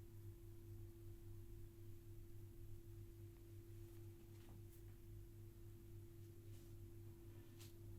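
Near silence: a steady low hum with a faint steady tone above it, and a few faint brief clicks or scratches in the second half.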